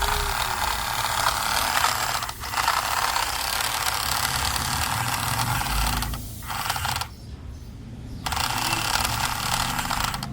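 A small motor whirring in several runs, stopping briefly about two seconds in and again around six seconds, with a longer pause of about a second before it starts up again.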